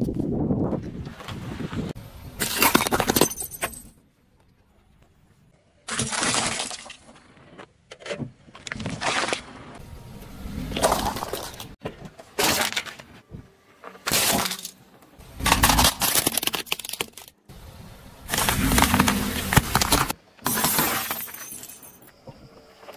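A car tyre crushing objects one after another, among them a drink can and glass: a string of separate crunching and breaking sounds with short gaps between, glass shattering among them.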